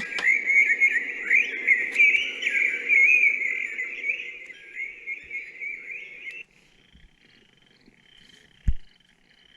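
Recorded birdsong nature sound from a Relaxor 722 clock radio's speaker: warbling chirps over a low hum. It cuts off about six seconds in, leaving faint short chirps, with one brief thump near the end.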